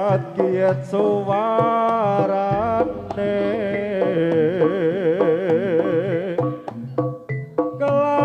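Live Javanese jaranan music: a wavering melodic lead with heavy vibrato over kendang drumming and gamelan accompaniment.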